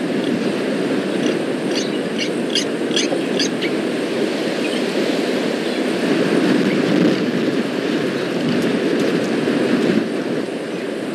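Steady low rumbling outdoor noise, with a bird giving a quick run of short, high chirps between about one and three and a half seconds in.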